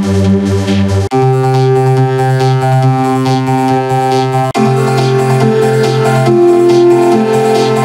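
Electronic keyboard music: sustained synth chords held steady, cut off sharply about a second in and again near the middle, each time jumping to a different chord or pitch.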